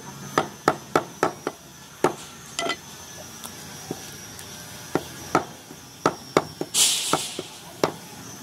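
Meat cleaver chopping goat meat and bone on a wooden log chopping block: a quick run of about five sharp chops, two more, a pause of a couple of seconds, then another run of chops.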